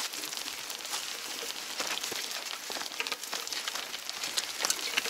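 A loaded bicycle pushed through sticky mud: the tyres and footsteps make a steady wet crackle of many small clicks and squelches.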